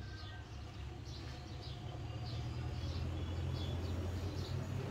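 A steady low hum, slowly growing louder, with short high bird chirps repeating over it.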